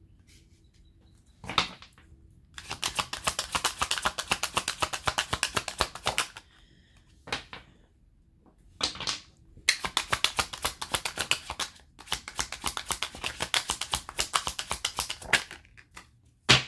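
A tarot deck being shuffled by hand: two long runs of rapid card slaps, several seconds each, with single sharp card snaps between and near the end.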